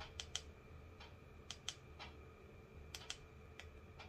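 Faint sharp clicks, mostly in pairs, coming roughly every second and a half over a low steady room hum.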